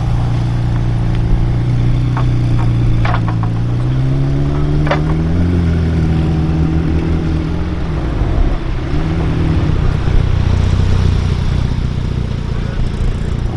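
McLaren 720S's twin-turbo V8 running at low speed as the car pulls away, with a brief rise and fall in revs about four to six seconds in. A few sharp clicks between about two and five seconds in.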